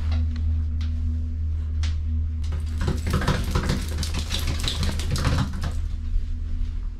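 Steady low hum inside a moving ski gondola cabin. From about two and a half seconds in, for about three seconds, a miniature dachshund yelps and whines, with clicks of its claws on the metal floor.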